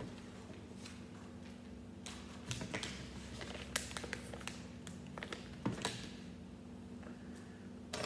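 Hands handling small plastic Lego pieces and a paper instruction sheet on a table: scattered light clicks and paper rustles, busiest in the middle, over a faint steady hum.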